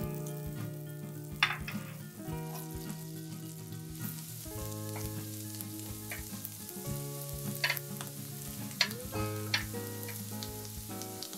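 Butter and chopped garlic sizzling in a nonstick frying pan while being stirred with tongs, which click against the pan several times.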